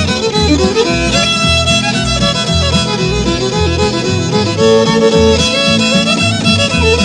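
Instrumental break in a honky-tonk country song: a fiddle plays the lead melody over a bass line and the band's rhythm.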